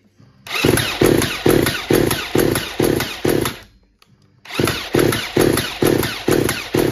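Parkside two-stroke chainsaw being cranked by its electric starter with the choke pulled, in two bursts of about three seconds, each with an even pulsing about twice a second. The engine turns over but does not catch.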